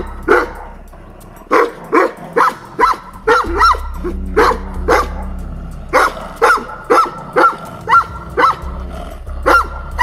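Large livestock guardian dog barking repeatedly in runs of about two barks a second, each bark sharp and on the same high pitch, during a rank fight between dogs. There is a pause with a low growl around the middle.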